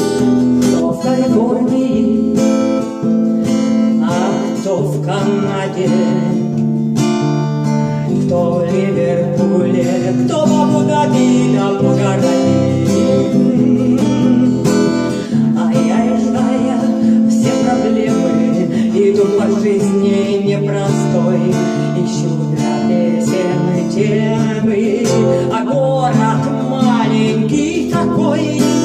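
Song music led by acoustic guitar strumming, with other melodic parts over it; no lyrics can be made out.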